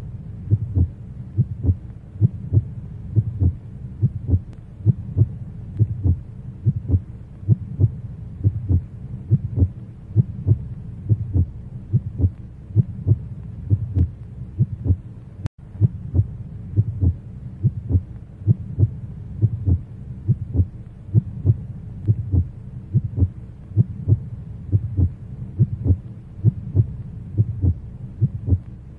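Heartbeat sound effect: a low double thump repeating steadily about once a second over a faint low hum, with a momentary dropout about halfway through.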